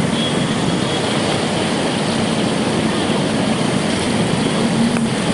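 Road traffic on a flooded street: vehicle engines running under a steady wash of noise from tyres moving through standing water.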